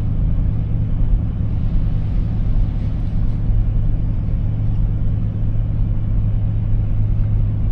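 Vehicle engine running with road noise while driving at low speed, a steady low drone.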